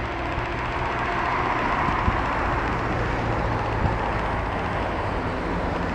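A Mat '64 Plan V electric multiple unit pulling away on departure: the steady running noise of its motors and wheels on the rails, with a faint low hum.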